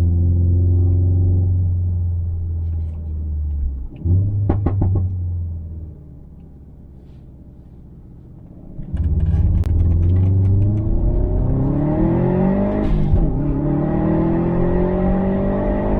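Subaru WRX STi's EJ257 2.5-litre turbocharged boxer engine, with the muffler deleted, pulling under load, then lifting off with a brief burst of sound about four seconds in. It runs quieter for a few seconds, then accelerates hard again from about nine seconds, with the revs climbing, dropping at a gear change and climbing again.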